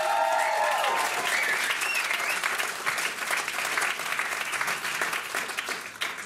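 Audience applauding, with a few cheers over it at first, dying down near the end.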